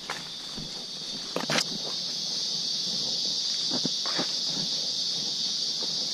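Steady high-pitched drone of forest insects, growing a little louder about a second and a half in. Irregular footsteps on a dirt trail land over it, the loudest about a second and a half in.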